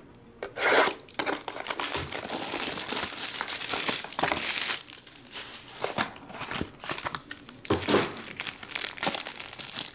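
Crinkling and rustling of a black plastic foil card pack being handled and unwrapped: dense crackling for the first few seconds, then lighter, broken crinkles.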